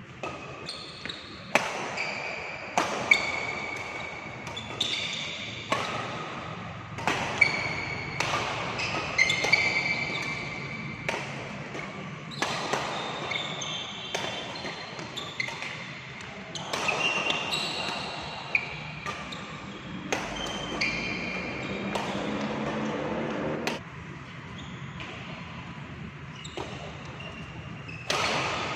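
Badminton play on an indoor court: sharp, irregular racket-on-shuttlecock hits about a second or so apart, with short high squeaks of shoes on the court floor between them.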